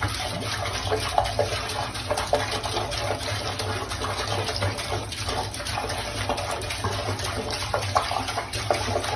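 Water running steadily from a faucet into a sink, with irregular splashing as a cat's paw reaches into the stream.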